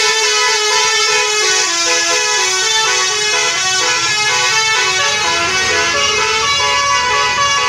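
Basuri 'telolet' multi-tone bus horn playing a tune: several horn tones sound together and step from note to note without a break, loud throughout.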